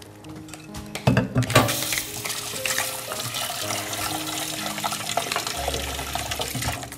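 Water running steadily, as from a kitchen tap, starting about a second and a half in.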